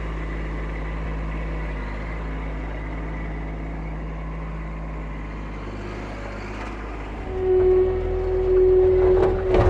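Kubota SSV75P skid steer's diesel engine running steadily as its grapple works. About seven seconds in it gets louder under load, with a strong steady whine coming in.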